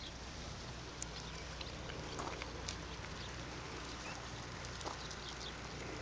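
Steady outdoor background noise with a low rumble and a scattered few faint clicks.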